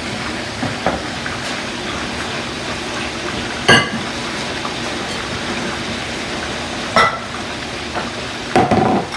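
A spoon clinking against mixing bowls a few times, short sharp knocks with a brief ring, the loudest about four seconds in, over a steady hiss.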